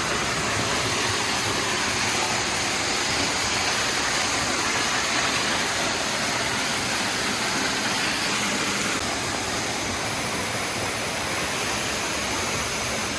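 Waterfall: the steady rush of falling water, a little quieter from about nine seconds in.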